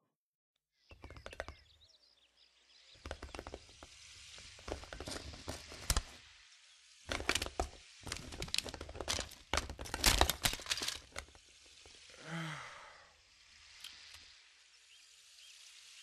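A large egg cracking open as it hatches: a long run of sharp cracks and knocks as the shell splits and breaks apart. About twelve seconds in comes a short, falling, sigh-like voice sound, then a few faint clicks.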